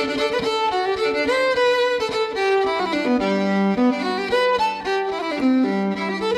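Instrumental background music with a fiddle carrying a moving melody over a quick rhythmic accompaniment.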